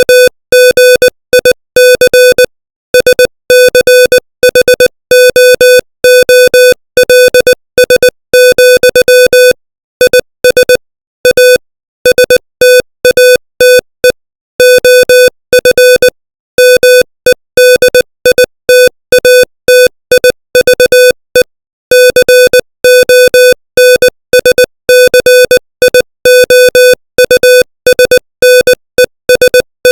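Morse code sent at 20 words per minute as a single mid-pitched electronic beep switched rapidly on and off. Short dots and longer dashes are separated by brief gaps between letters and longer pauses between words.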